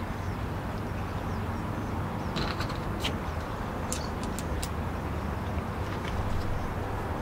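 Steady low outdoor rumble with a few faint, light clicks about halfway through as a bungee cord is handled.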